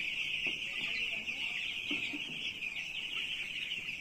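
Hundreds of four-day-old chicks peeping all at once, a dense, continuous chorus of high chirps at a steady level.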